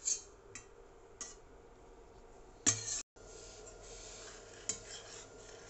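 Metal spoon stirring a milk and cream-cheese mixture in a stainless steel pot, with a few scattered clinks of the spoon against the pot, the loudest about two and a half seconds in.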